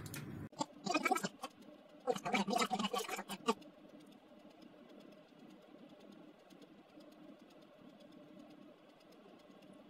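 A man's voice murmuring quietly in the first few seconds, then a faint steady room hum with a few light ticks.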